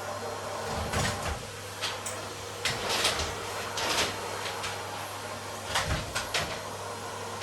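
Irregular knocks, clunks and rustles of household items being handled and put away during tidying, over a faint steady hum.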